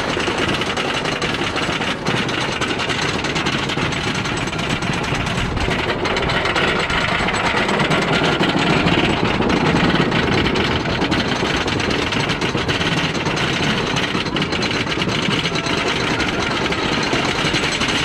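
Wooden roller coaster lift hill: the chain and anti-rollback ratchet give a fast, steady mechanical clatter as the train is hauled up the climb.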